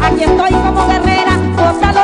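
A woman singing llanera music live into a microphone, her voice strong and wavering over a band with a bouncing bass line.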